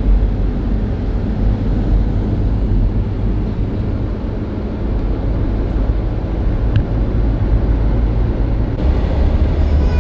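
Steady road noise inside a moving car's cabin: a deep, even rumble of tyres and engine at highway speed.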